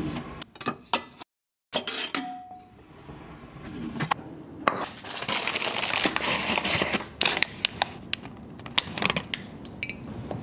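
Household handling sounds: a string of sharp clinks and knocks, with a stretch of steady hiss a few seconds in.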